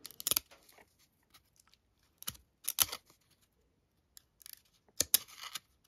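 Cardboard baseball trading cards flicking and sliding against each other as a stack is thumbed through one card at a time. There are a few short, sharp snaps in three separate bunches, near the start, in the middle and near the end.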